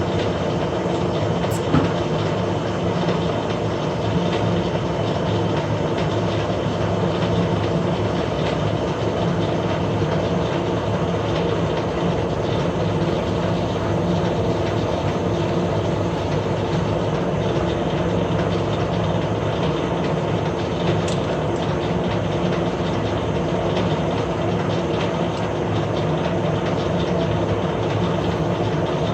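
Metal lathe running steadily while machining an internal thread, a continuous mechanical hum at an even level, with two short faint clicks, one near the start and one about two-thirds of the way through.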